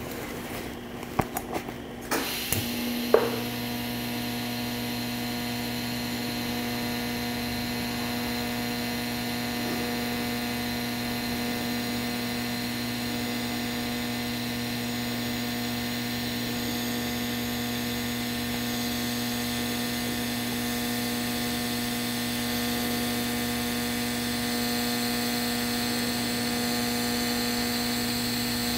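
TIG welding arc buzzing steadily at 100 amps, joining a pipe to an exhaust flange with ER309 filler rod, the foot pedal held fully down. It strikes about three seconds in, after a few clicks.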